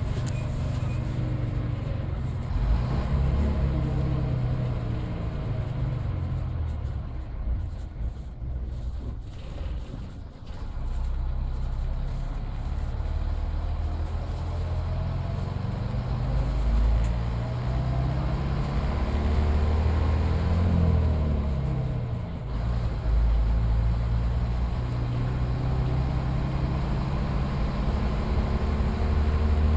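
Midland Red BMMO D9 double-decker bus's diesel engine pulling along under way, heard from on board. The engine note rises and falls with the revs: it eases off about eight seconds in and again after about twenty-two seconds, then picks up again.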